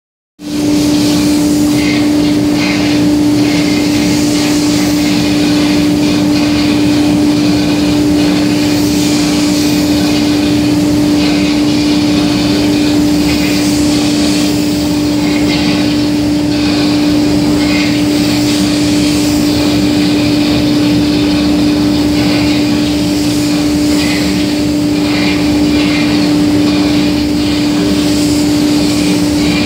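Steady hum of spray booth machinery at one constant pitch, with the hiss of a compressed-air spray gun rising and falling as the trigger is pulled while stain is sprayed onto a wooden door.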